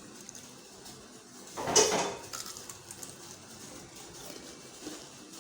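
Cookware clattering: one short, loud knock-and-scrape of a pot or utensil about two seconds in, with quieter handling sounds around it.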